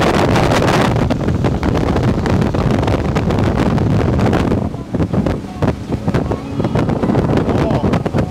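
Wind buffeting the microphone aboard a Cobalt bowrider running at speed, over the rush of water along the hull and the drone of its 6.2-litre, 350 hp sterndrive engine. The wind eases for a couple of seconds about halfway through, then picks up again.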